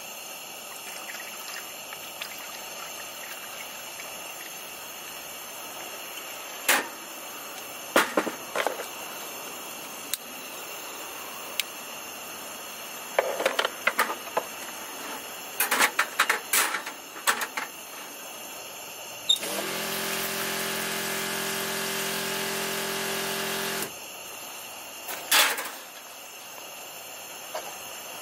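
Clicks and knocks of a brass alcohol stove and its fuel bottle being handled. About two-thirds of the way in, a steady hiss with a buzzing tone starts sharply, runs for about four and a half seconds and cuts off: a butane torch lighting the alcohol burner.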